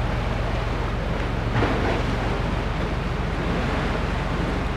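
Steady wind buffeting the microphone over sea waves washing against the rocky shore, with a brief louder rush about a second and a half in.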